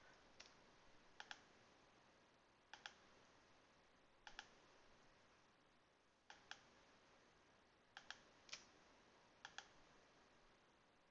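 Faint computer mouse clicks: about nine short, sharp clicks at irregular intervals, some in close pairs, over faint room hiss.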